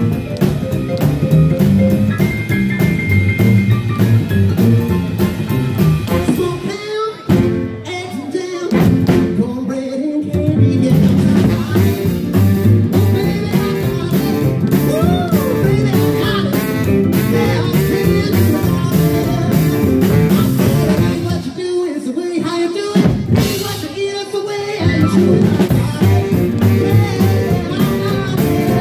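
Live rhythm-and-blues band playing: piano, upright bass, drum kit and saxophone, with a woman singing. Twice the bass and drums drop out for short breaks before the full band comes back in.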